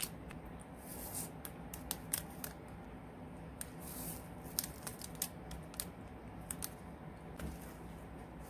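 Plastic packet of glitter crinkling in the hands, and glitter poured into a clear plastic tub of slime: a scatter of light crackles and clicks, densest about one and four seconds in.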